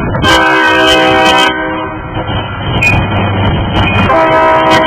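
Union Pacific diesel locomotive's air horn sounding two blasts about four seconds apart, each a little over a second long, over the low rumble of the approaching train.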